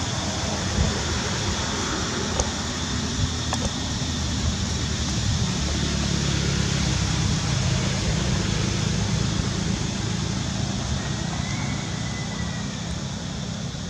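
Steady outdoor background noise: a low rumble with a hiss above it, swelling a little around the middle, with a few light clicks in the first four seconds.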